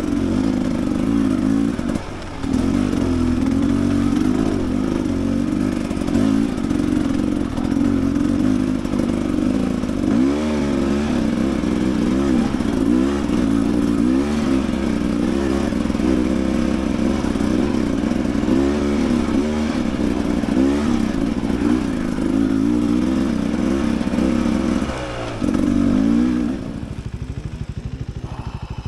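Dirt bike engine running under a rider on singletrack, the revs rising and falling again and again as the throttle is worked. Near the end it drops to a lower, steady idle.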